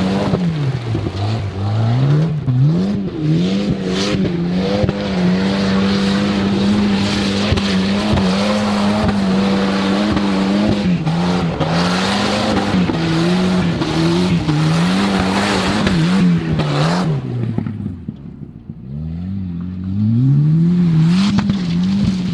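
Turbocharged Volvo 940 rally car driven hard on a gravel riverbed. The engine is held high in the revs, dipping and climbing again several times as the throttle is worked, over a steady hiss of tyre and gravel noise. Near the end the revs fall and it goes quieter for a moment before revving up again.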